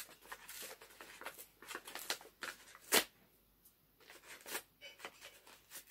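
Paper gift wrapping on a book being handled and unwrapped: crisp crinkling and rustling, with one sharp crackle about three seconds in, a short lull, then more rustling.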